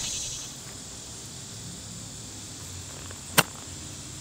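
Lob wedge striking a golf ball on a pitch shot: a single sharp click a little over three seconds in, over a faint outdoor background.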